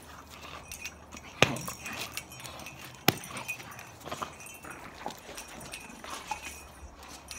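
A dog's claws tapping and scraping on concrete as it tugs and scrambles about on a leash, with two sharp knocks, one about a second and a half in and one about three seconds in.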